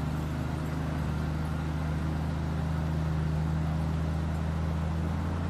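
Engine of an old six-wheel-drive log truck running at a steady idle, a constant low hum that does not rise or fall, while the truck sits stuck in a river.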